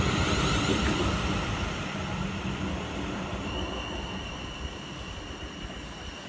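South Western Railway electric multiple unit running away along the platform, its rumble fading steadily as it goes. A thin, steady high tone comes in about halfway through.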